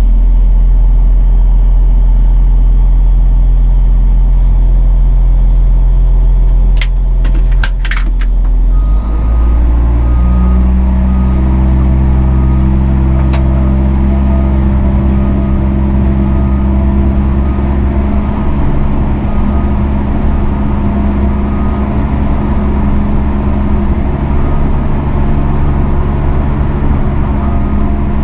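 Diesel engine of a Hagie self-propelled sprayer running at a low idle just after starting, then throttled up about nine seconds in to a higher, steady engine speed. A few sharp clicks come just before the throttle-up.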